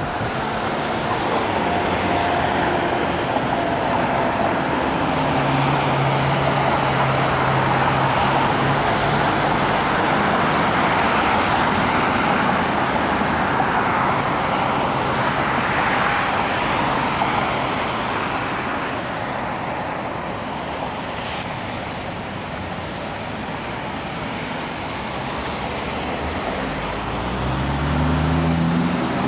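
Road traffic passing on a busy multi-lane road: a steady rush of tyres and engines. Near the end a vehicle's engine rises in pitch as it pulls away.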